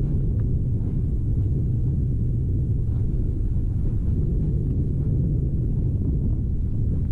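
Steady low rumble from an erupting volcanic vent spattering lava, mixed with wind on the microphone, with a few faint ticks above it.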